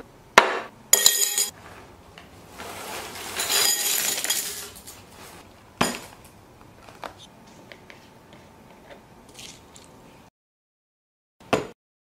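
Breakfast table sounds: a carton set down with a knock, a ceramic bowl clinking with a brief ring, then corn flakes poured into the bowl for a couple of seconds. A few light knocks and ticks follow, and one short sound comes near the end.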